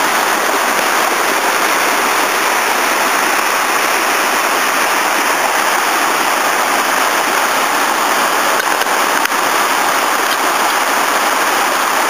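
Steady rush of a mountain torrent's waterfall, water cascading and splashing over boulders.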